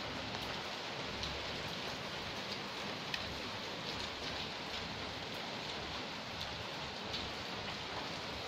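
Steady, even hiss like light rain, with a few faint ticks.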